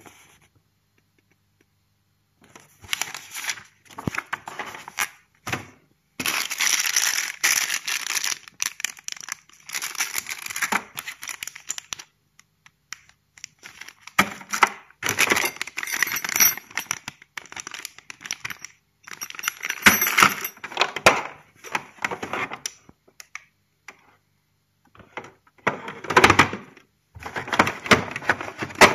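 Plastic packaging bags crinkling and rustling in irregular bursts as they are handled, with light knocks and clinks of parts in a plastic tool case.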